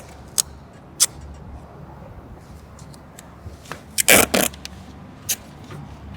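Masking tape being pulled off the roll and pressed down on a paper template, in a few quick rips and one longer tearing pull about four seconds in.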